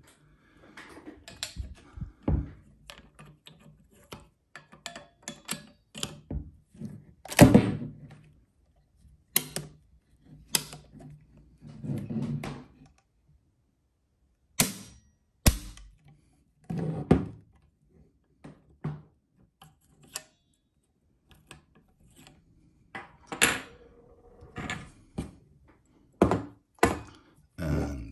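An antique 16-gauge double-barrel hammer shotgun being worked by hand: its action opened and snapped shut and its metal parts handled, giving an irregular string of metallic clicks with several sharper clacks.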